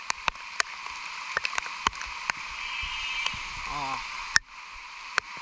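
Rain falling with a steady hiss, with many sharp ticks of raindrops striking the phone close to the microphone. A person's voice is heard briefly a little past the middle.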